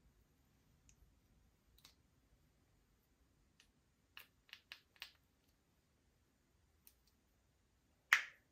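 Slime being pressed and worked by hand, popping trapped air bubbles: four quick sharp pops about four seconds in, a few fainter clicks, and one louder pop near the end.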